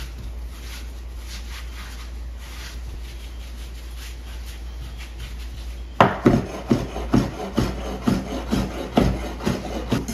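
Hands rolling soft ricotta gnocchi dough into a rope on a floured wooden cutting board, a faint rubbing. About six seconds in, a chef's knife starts cutting the rope into pieces, knocking on the board about three or four times a second.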